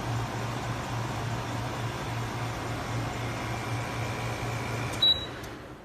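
JHS 12,000 BTU portable air conditioner running: a steady rush of fan air over a low hum. About five seconds in, a short high beep sounds and the running noise dies away.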